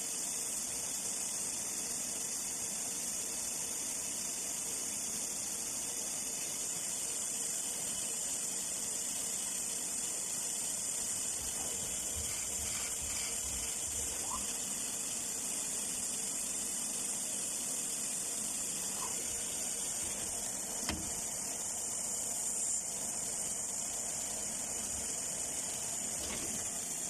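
Swiss-type CNC lathe (DAS DS-20Z-DY) running, a steady high-pitched hiss with one sharp click about 21 seconds in.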